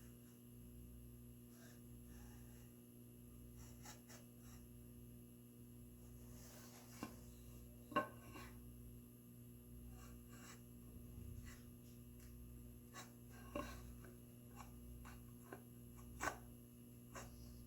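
Faint scraping and rubbing of hand tools on a red oak board during marking out, with a few light sharp taps, the loudest about eight seconds in, over a low steady hum.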